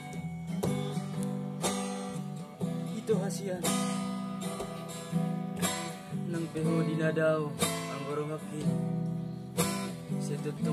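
Acoustic guitar strummed in a steady rhythm, accompanying a Batak song, with a man's voice singing along.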